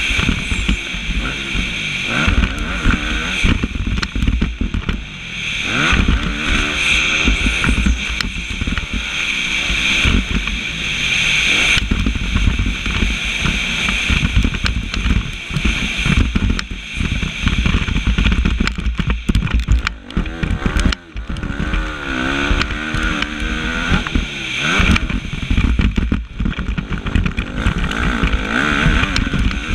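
Motocross bike engine heard close up from an onboard camera at race pace, revving up and down continuously through gear changes. The throttle is chopped briefly a few times, the deepest drop about two-thirds through, before it revs hard again.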